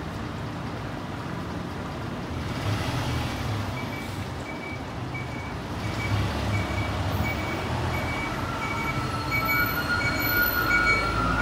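Diesel bus engine idling with a low steady rumble. From about two seconds in, a short electronic beep repeats about twice a second, and a higher steady tone joins near the end.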